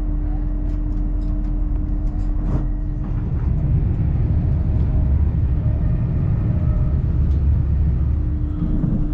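A steady hum and low noise on a station platform, then from about three seconds in the louder, steady low rumble of a Class 802 train running, heard inside the coach.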